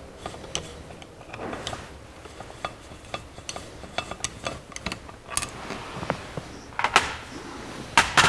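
Screws being backed out of a Rochester 4-jet carburetor's throttle body with a screwdriver and fingers, giving scattered light metallic clicks and clinks of tool and screws against the metal. Near the end come a couple of louder clinks.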